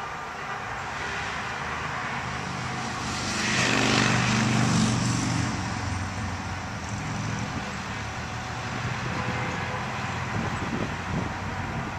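Street traffic noise, with a vehicle passing close and loudest about four seconds in.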